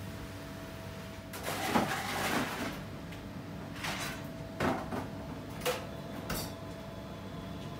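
Kitchen handling noises: a short clatter followed by four or five separate knocks and bumps of things being set down and moved, over a steady hum of kitchen equipment.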